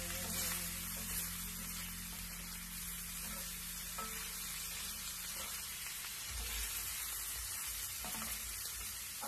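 Chopped boiled pork belly frying in a pan: a steady sizzle, with the meat stirred now and then.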